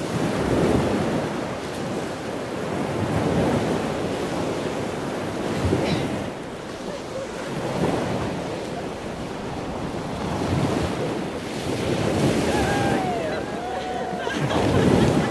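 Ocean surf breaking on a sandy beach, mixed with wind buffeting the microphone; the noise swells and eases every few seconds.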